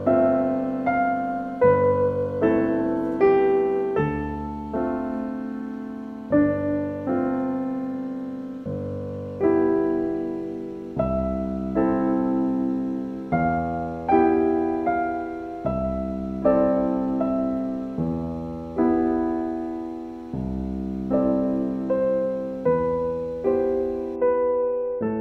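Slow, gentle solo piano music: notes and chords struck about once a second and left to fade.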